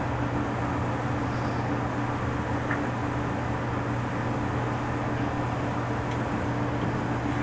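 Steady low machine hum over a background hiss, with a couple of faint light clicks.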